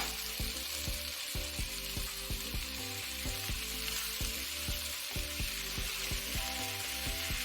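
Diced potatoes, onions, jalapeños and tomatoes sizzling in oil in a frying pan.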